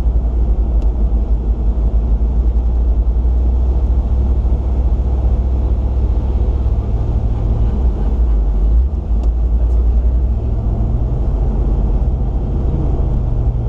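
Land Rover Discovery 2 driving slowly on beach sand in low range, heard from inside the cabin: a steady low engine drone and rumble. The engine note shifts briefly about eight seconds in, then settles again. The V8 is running hot after overheating.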